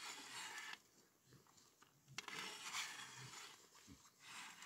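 Hand-cranked ice auger boring into lake ice, turned slowly: faint crunching scrapes of the blades on the ice in three bursts about two seconds apart, with a sharp click at the start of the second.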